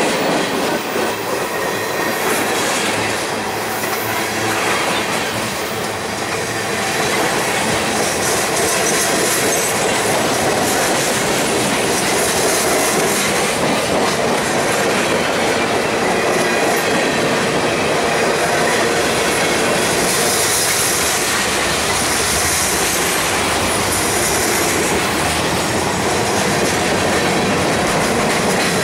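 Freight cars rolling past close by, a steady loud rumble and clatter of steel wheels on rail. High-pitched squealing comes and goes, strongest about twenty seconds in.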